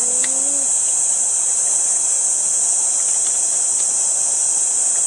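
Night insect chorus: a steady, high-pitched shrill trill that runs on without a break.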